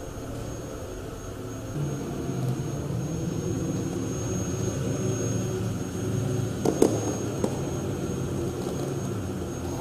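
A small wheeled robot's electric drive motors humming steadily as it rolls across a wooden floor, growing louder about two seconds in as it comes close, with a thin high whine over it. A couple of sharp clicks come about seven seconds in.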